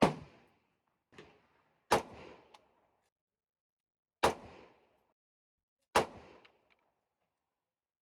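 12-gauge shotgun fired four times, roughly two seconds apart, each shot a sharp blast with a short echo. A much fainter shot comes about a second in.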